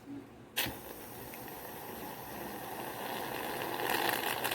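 Aerosol can of shaving foam spraying in one long, steady hiss. It starts about half a second in and slowly grows louder.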